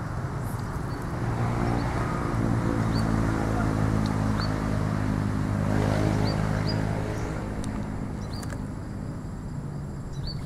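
An engine hums, swelling after about a second and fading near the end, like a motor vehicle passing. Short high chirps, likely a bird, repeat over it.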